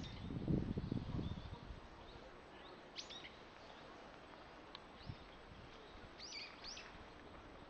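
Birds chirping: short, thin, high calls scattered through, some single and some in quick pairs, over faint outdoor background noise. A low muffled rumble, the loudest sound, fills the first second and a half.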